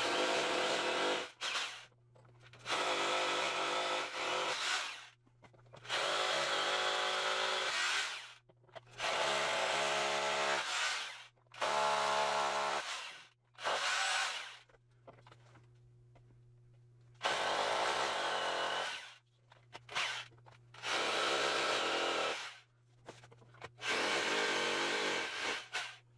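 Corded hammer drill boring pilot holes for concrete screws into a concrete floor, in about ten separate runs of one to two seconds each with short pauses between them.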